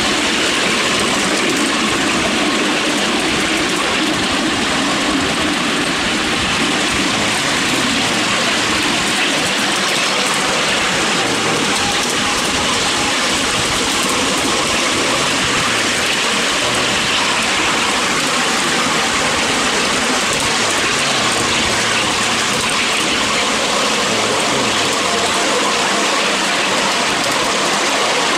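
Steady running noise of a miniature railway train carrying its passengers along the track: wheels on the rails making an even hiss that does not let up.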